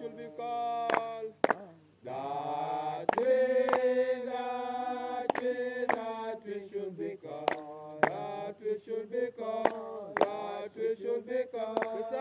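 Voices chanting in long, held, sliding notes, with a short break about two seconds in and sharp strikes scattered throughout.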